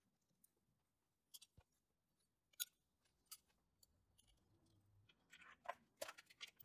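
Near silence broken by a few faint clicks and taps of small parts being handled as the power lead and terminal-box cover are fitted to an electric motor, with a small cluster of clicks near the end.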